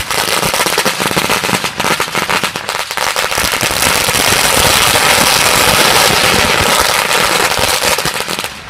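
Firecrackers going off in rapid popping that thickens into a dense, continuous crackle about three and a half seconds in, then stops suddenly just before the end.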